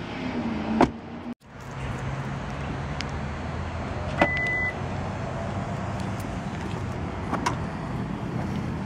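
A car's rear door shut with a single thud about a second in. A few seconds later comes a click and a short single beep as the trunk button on the key fob is pressed, then clicks from the trunk latch releasing near the end.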